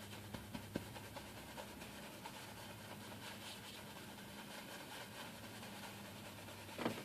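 Faint scrubbing and dabbing of a paintbrush on canvas, with a few soft ticks, over a steady low electrical hum.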